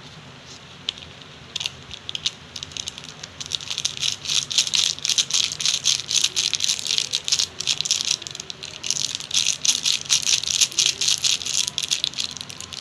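A pan of water with Maggi noodles and masala heating on the stove as it comes to the boil: a dense, rapid, irregular rattling crackle that starts about a second and a half in and grows louder a couple of seconds later.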